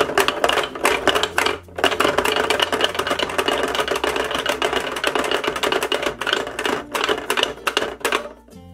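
Fast, irregular clatter of a plastic pop-up toy's push buttons being pressed over and over, with the wooden peg dolls knocking as they pop up and fall back into their cups. It pauses briefly about two seconds in and dies away just before the end.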